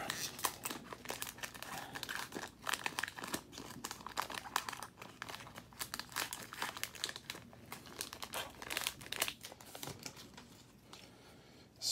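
Plastic trading-card pack wrapper crinkling and tearing as it is handled and opened: a run of irregular crackles and small clicks that thins out over the last couple of seconds.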